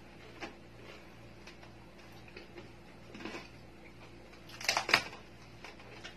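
Crispy roast pig skin (lechon) crackling as a roasted pig's head is torn apart by hand: faint scattered crackles, then a short burst of loud crunches about five seconds in.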